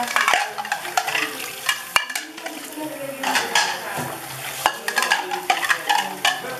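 Tap water running and splashing into a stainless steel sink while plastic plates are scrubbed with a sponge and rinsed, with irregular light knocks of dishes against the sink, one sharper one about two seconds in.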